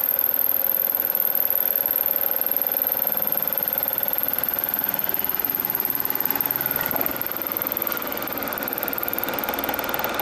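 Millport Model 2S milling machine running with a face mill cutting across a metal block: a steady mechanical whir of spindle and cutter, easing slightly about eight seconds in.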